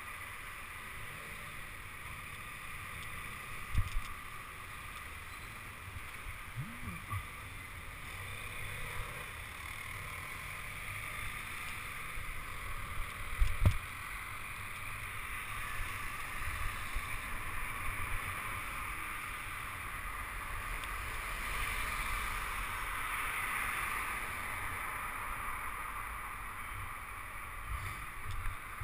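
Steady wind and road noise on a camera carried on a moving bicycle, with a few sharp knocks, the loudest about thirteen seconds in.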